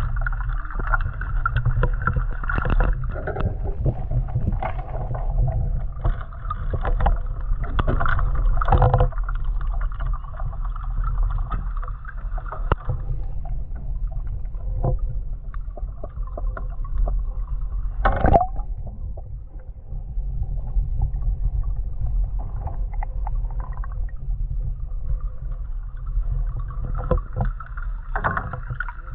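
A small inflatable boat out on the water: irregular knocks and splashes over a steady low rumble, with one sharper knock about two-thirds of the way through.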